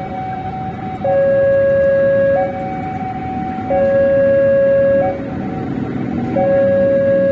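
Electronic two-tone warning alarm alternating between a lower and a higher note, each held about a second and a half, the lower note louder, over a steady background rumble.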